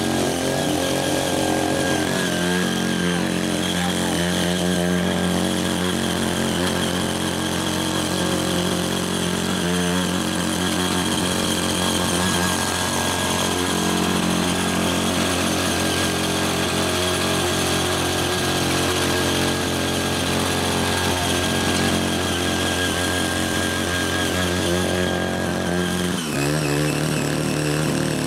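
Ching Yee CY80 power tiller's small engine running steadily while its rotary tilling blades churn loose red clay. Near the end the engine note drops suddenly to a lower, steady speed.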